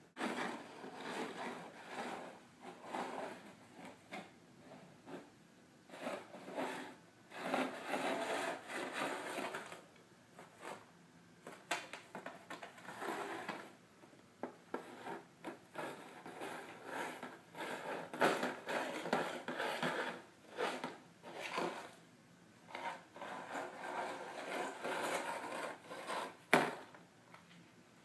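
Clear plastic tub being pushed and batted by a cat, scraping and sliding across a wooden parquet floor in irregular bursts, with a couple of sharp knocks.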